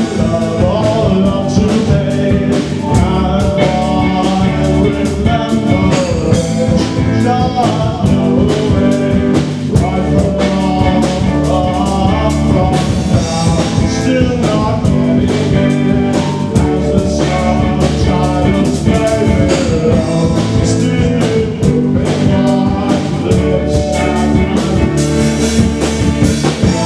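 Rock band playing loudly: a drum kit keeping a steady beat under electric guitar, with a man singing over it.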